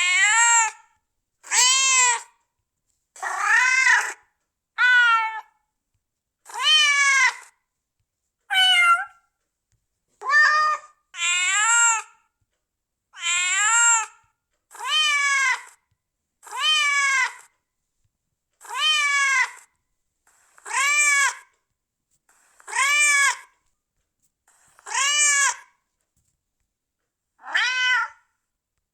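Domestic cat meowing over and over: about sixteen separate meows, one every 1.5 to 2 seconds. Each meow rises and then falls in pitch, with silence between them.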